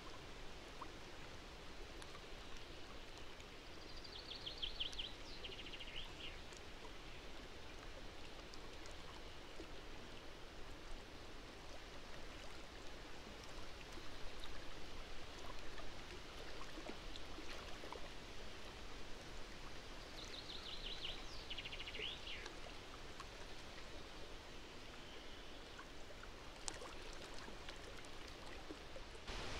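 A small songbird sings a short trilled phrase that steps down in pitch, twice, about fifteen seconds apart, over a steady outdoor background hiss that swells briefly midway.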